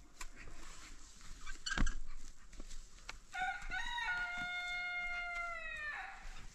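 A rooster crowing once, a single long call held for nearly three seconds that drops off at the end. About two seconds in there is a single sharp knock.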